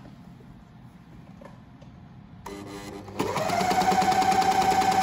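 Janome 8002D overlocker starting up about two and a half seconds in. It runs slowly for a moment, then speeds up into a fast, steady stitching rhythm with a motor whine that rises and then holds one pitch, sewing a three-thread narrow overlock edge with the left needle removed and the knife disengaged.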